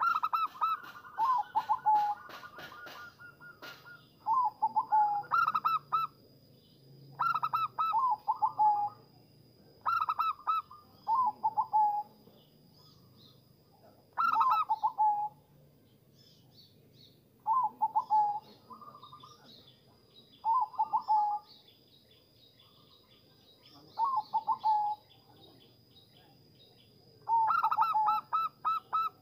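Zebra dove (perkutut) cooing: a run of about ten short phrases of quick, stuttering, mellow notes, one phrase every three seconds or so. A faint steady high-pitched tone runs behind most of it. Some higher chirps come in the first few seconds.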